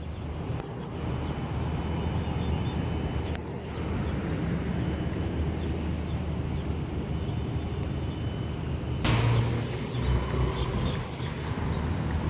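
Steady low motor hum with outdoor rumble. About nine seconds in, a louder rush of noise swells briefly and fades.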